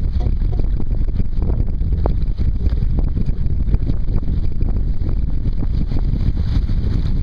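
Wind rumbling steadily on the microphone of a Sunfish sailboat under way, with water rushing along the hull.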